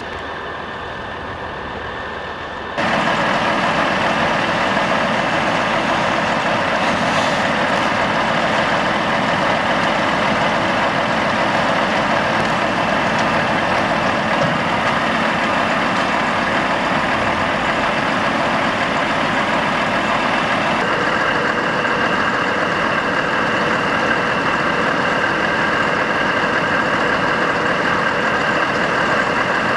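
Volvo heavy wrecker's diesel engine running steadily, with a steady high whine riding over it. It jumps louder about three seconds in.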